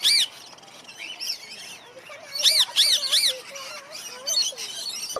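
Aviary birds calling: two loud, short, arched calls at the start and three more in quick succession about two and a half seconds in, with softer chirps and twitters between.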